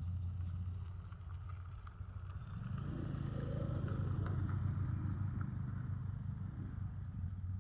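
A vehicle engine running with a low rumble, growing louder about three seconds in and easing off again near the end.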